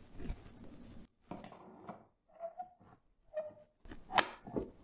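Faint handling sounds as a communication device is fitted onto a floor-stand arm's quick-release mount, then one sharp click about four seconds in as the quick release locks the device in place.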